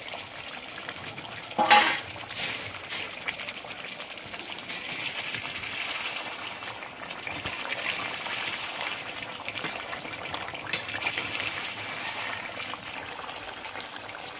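Chicken curry bubbling and sizzling in the pan as fried capsicum goes in and is stirred through, with a sharp knock from the pan about two seconds in.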